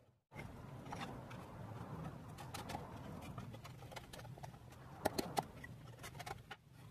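Thin tulipwood liner panels being handled and pushed into a wooden iroko box: light wooden rubbing and scraping, with a quick run of three sharp wooden clicks about five seconds in.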